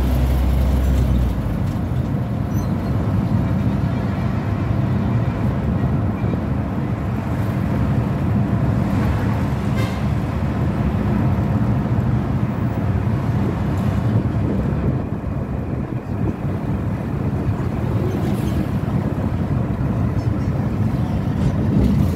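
Road vehicle in motion: a steady engine and road rumble. A very deep drone underneath ends about a second and a half in.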